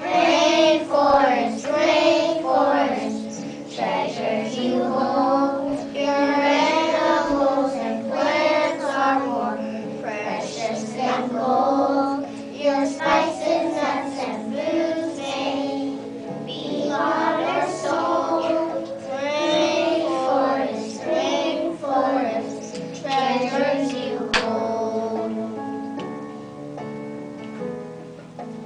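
A group of young children singing a song together over an instrumental accompaniment. The voices stop about 25 seconds in, leaving the accompaniment playing on.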